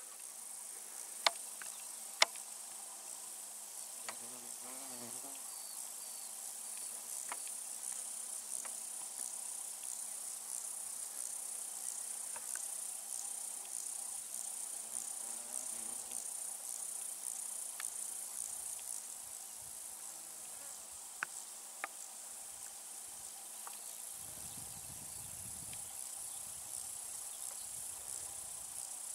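Steady, high-pitched chirring chorus of meadow insects such as grasshoppers and crickets. Two sharp clicks stand out in the first few seconds, and a low rumble comes in near the end.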